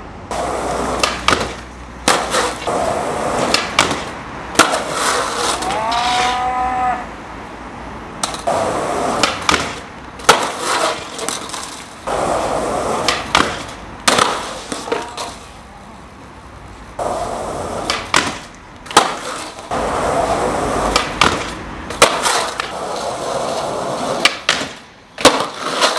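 Skateboard wheels rolling over stone paving, broken by many sharp clacks of the board popping and landing. About six seconds in a person lets out one drawn-out groan.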